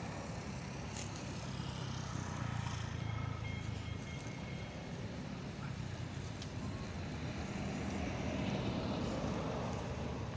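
A motor vehicle's engine running steadily as a low rumble under outdoor background noise, a little louder about a quarter of the way in and again near the end.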